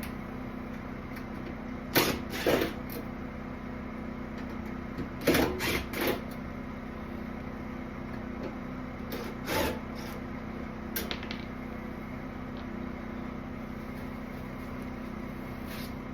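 A steady low mechanical hum, with a handful of short, irregular knocks and clatters, the loudest about two seconds in and a cluster around five to six seconds in.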